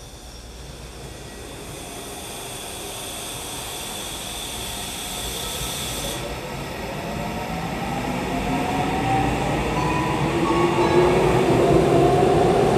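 Saitama Railway 2000 series train pulling away and accelerating, its Mitsubishi two-level IGBT VVVF inverter and traction motors whining. A steady high tone cuts out about six seconds in, and then several tones rise in pitch as speed builds. The running noise grows steadily louder throughout.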